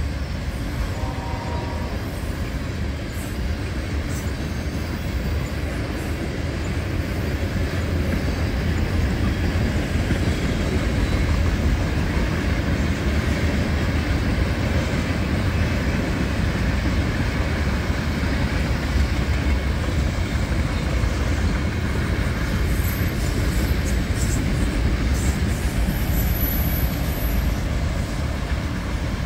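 Freight cars of a long mixed train rolling past: a steady rumble of steel wheels on rail. A thin, high wheel squeal comes in briefly twice near the end.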